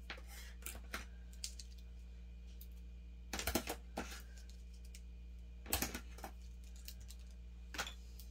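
Small hard plastic and glass items clicking and clattering as they are handled and set down on a tabletop: gel polish bottles and nail swatch sticks being lined up. The clicks come in a few short clusters, the loudest about three and a half seconds in and again near six seconds.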